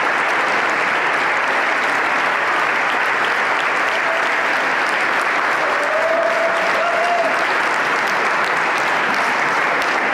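Large audience applauding steadily, a dense even clapping. A short held tone rises faintly above it about six seconds in.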